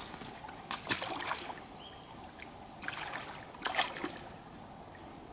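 Water splashing and sloshing as a person steps down off stone steps and wades into shallow water, with louder bursts about a second in and again around three to four seconds in.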